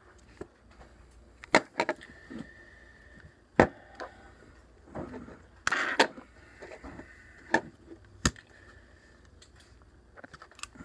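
Sharp plastic clicks and taps from a LaGard electronic safe-lock keypad being handled and its buttons pressed, with a faint high electronic beep held for about a second near the start and again more briefly later.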